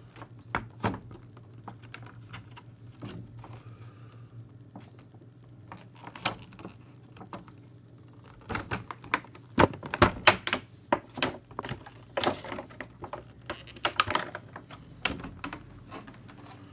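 A Pokémon card collection box and its packaging being handled and opened: irregular clicks, taps and crinkles, sparse at first and busier and louder from about halfway, over a faint steady low hum.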